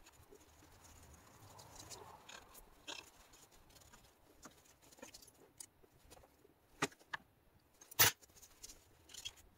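Faint scraping and small clicks of hand tools cleaning old gasket remains off a chainsaw crankcase, with a sharper metallic clink about 8 seconds in as a tool is handled on the bench.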